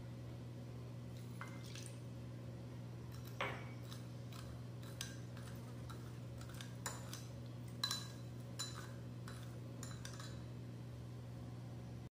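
Steel spoon clinking and scraping against a small bowl while stirring citric acid into water, in scattered light clinks, the loudest about three and a half and eight seconds in. A steady low hum lies underneath.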